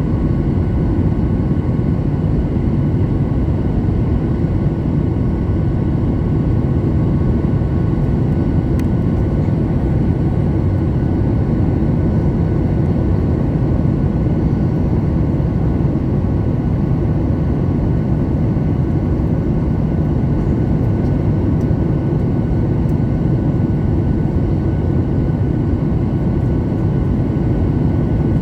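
Jet airliner engines heard from inside the passenger cabin while climbing out after takeoff: a steady low roar with a few faint steady whining tones above it.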